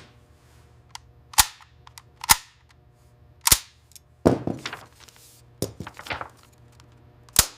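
Gunshots fired singly at an uneven pace: four loud sharp cracks, about a second and a half in, two and a half in, three and a half in and near the end, with several quieter shots and pops between them.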